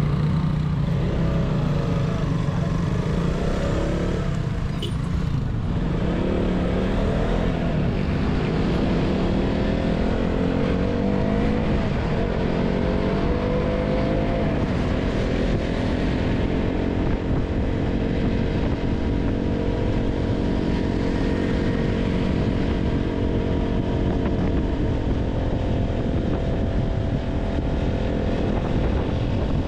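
KTM 200 Duke's single-cylinder engine running under way. Its pitch climbs over several seconds in the first half as it accelerates, then holds fairly steady, over a constant low rushing noise.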